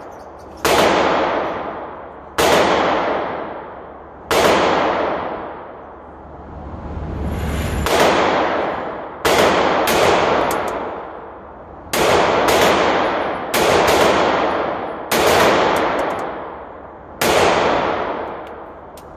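Sig Sauer P365 pistol fired about a dozen times at an uneven pace, some shots in quick pairs. Each sharp report rings on in a long echo off the concrete-block walls of the indoor range.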